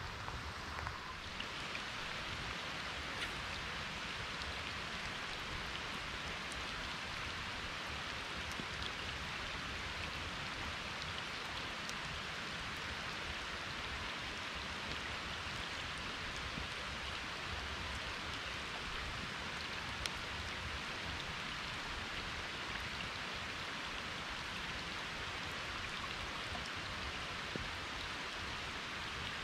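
Steady rain falling, an even hiss with a few single drop taps standing out now and then.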